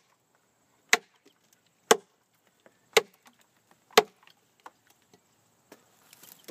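Large camp knife with a 13-inch ATS-34 steel blade chopping into a log, which the knifemaker thinks is pine: four sharp chops about a second apart, the last about four seconds in.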